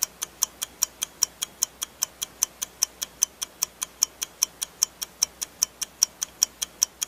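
Countdown-timer ticking sound effect: clock-like ticks, fast and even at about five a second.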